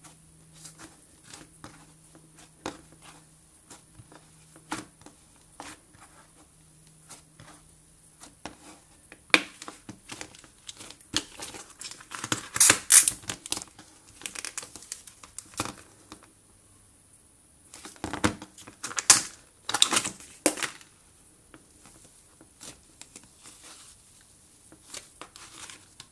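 Hands squeezing and stretching fluffy cloud slime: many small sticky crackles and crinkling pops, rising twice into louder runs of crackling and tearing as the slime is pulled apart, about halfway through and again about three-quarters through.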